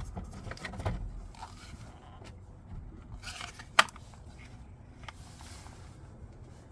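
Handling noises from work on a car battery: scattered scrapes and small clicks, with one sharp click a little under four seconds in.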